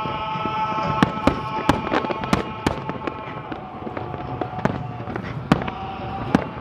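Fireworks display: many sharp bangs and cracks from bursting shells at irregular intervals, over a steady background rumble.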